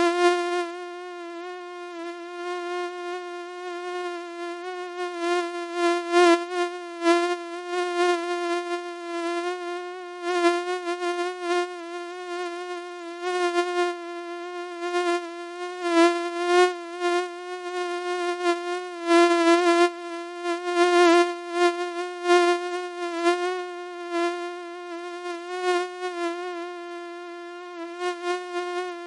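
Mosquito's whining buzz from its beating wings: one steady, slightly wavering pitch with many overtones, the loudness swelling and fading again and again.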